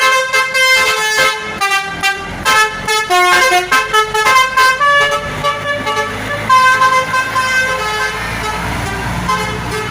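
A bus's basuri telolet horn playing a tune of quick, stepping notes, with the bus's engine running underneath, more audible in the second half.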